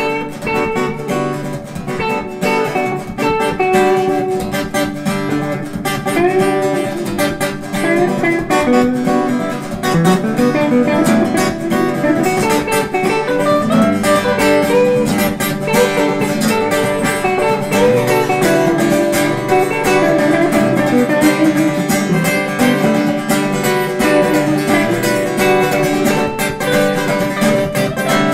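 Background music led by acoustic guitar, with plucked and strummed chords.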